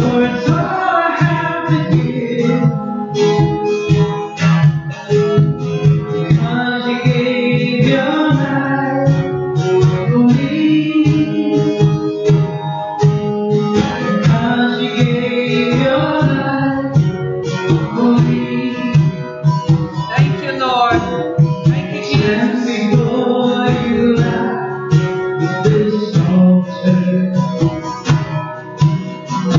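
Live worship song: a singer accompanied by acoustic guitar and hand-played conga drums, with the drums keeping a steady beat.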